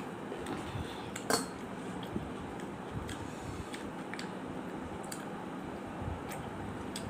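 Fingers mixing rice on a metal plate: a few light clinks and scrapes against the plate, the sharpest about a second in, over a steady background hiss.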